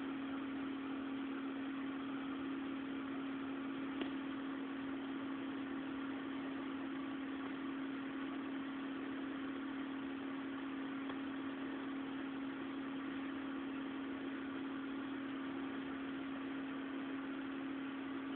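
Steady machine hum: one constant low tone over an even hiss, with a single faint click about four seconds in.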